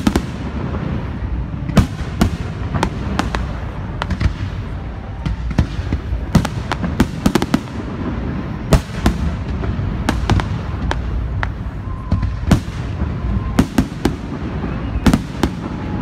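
Aerial firework shells bursting in quick, irregular succession: many sharp bangs, several a second at times, over a constant low rumble from the barrage.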